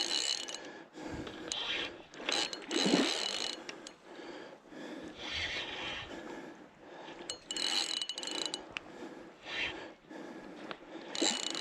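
Fishing reel whirring and ratcheting in short irregular bursts, some with a thin high whine, as a hooked barramundi pulls against the drag and is wound in.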